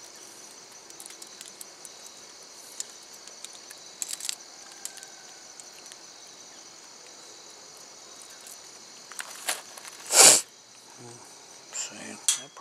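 Scattered clicks and short scrapes of a metal spray wand's valve being worked with pliers, the loudest a brief scrape about ten seconds in, over a steady high-pitched insect chirring.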